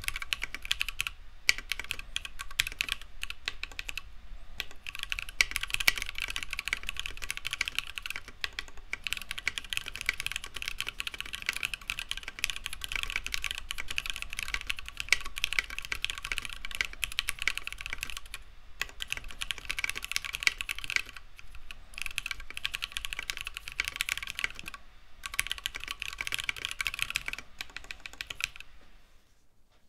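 Fast, continuous typing on a custom 60% mechanical keyboard: a Tofu60 case with an FR4 plate, Lavender switches and Osume Sakura keycaps. It pauses briefly a few times and stops near the end.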